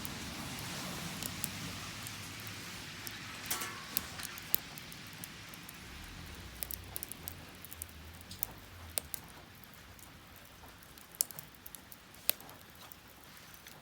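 Wood fire burning in a Solo Stove fire pit: a steady hiss of flame that slowly gets quieter, broken by scattered sharp crackles and pops from the burning wood.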